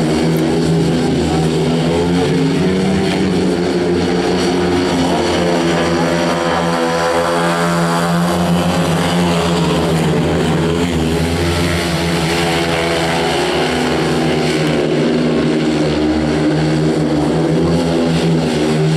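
500 cc single-cylinder speedway motorcycle engines running hard around the track in a steady, loud drone. About the middle, the engine note bends in pitch as a bike passes close.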